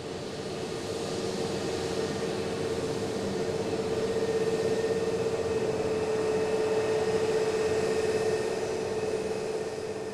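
Airliner jet engines running steadily on the ground: a sustained whine over a rushing noise, growing louder over the first few seconds.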